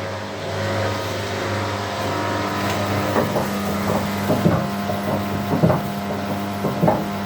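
Wagner washing machine drum turning with a steady motor hum. From about three seconds in, knocks come in pairs about once a second with each turn of the drum, which the repairer puts down to a broken drum spider (cross-piece).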